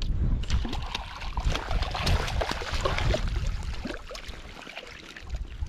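Water splashing and sloshing close by, irregular and busiest in the first half, over a low rumble.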